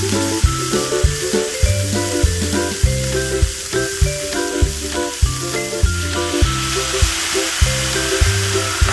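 Bean sprouts sizzling and being stirred in a hot oiled pan, a steady frying hiss. Background music with a steady beat plays underneath.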